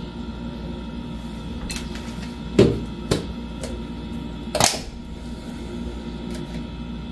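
A plastic jar being handled at a kitchen sink: a few knocks and clatters, the loudest about two and a half seconds in and another just before five seconds, over a steady low hum.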